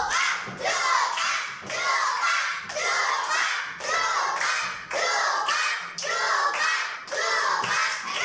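Children's voices chanting in a steady rhythm, about one call a second, with thumps and taps of cards being pressed onto a whiteboard.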